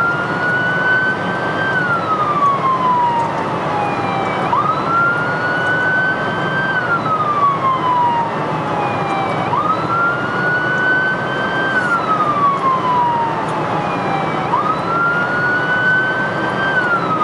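Emergency vehicle siren on the wail setting, heard from the responding vehicle: each cycle rises quickly, holds briefly, then slowly falls, repeating about every five seconds, over steady road and engine noise.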